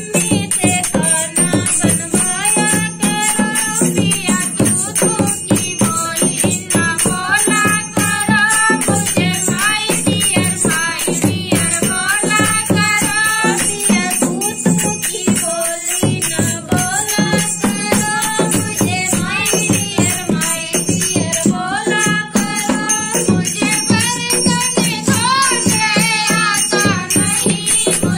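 Women singing a Hindi folk dance song (naach geet) to a dholak barrel drum, with small brass hand cymbals jingling in time.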